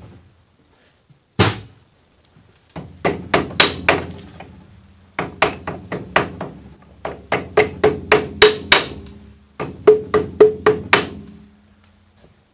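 Hammer taps on the end of a Sheldon lathe's main spindle, driving it through the headstock where it has caught. A single blow, then bursts of quick taps at about three a second, with the metal ringing after each strike.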